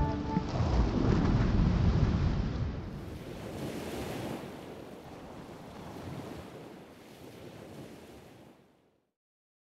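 Even rushing noise of wind and ocean surf, slowly fading away and gone just before nine seconds in. A held music chord dies away in the first half second.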